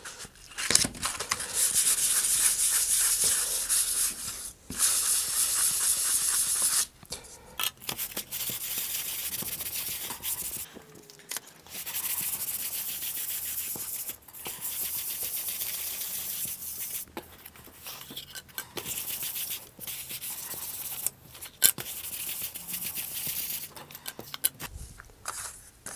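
320-grit sandpaper rubbed by hand across flat balsa-wood fin panels, a light sanding to get them smooth and flat: runs of scratchy back-and-forth strokes lasting a few seconds each, with short pauses between them.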